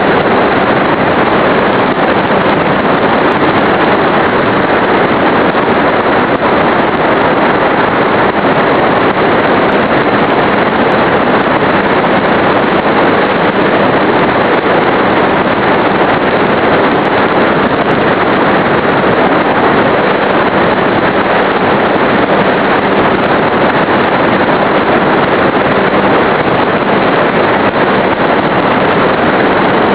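Steady, loud rush of wind and propeller noise picked up by a small camera mounted on an RC model plane in flight, driven by an E-flite Power 25 electric motor. An even, unbroken hiss that holds level and pitch throughout.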